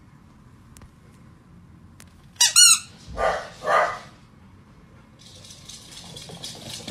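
Rubber squeaky toy squeaking once about two and a half seconds in, followed by two shorter, breathier squeaks.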